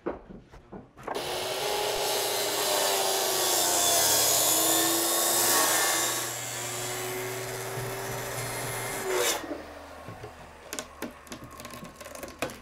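Circular saw cutting through plywood wall sheathing for about eight seconds, its motor pitch sagging under load midway through the cut, then stopping sharply. Light knocks and rattles follow.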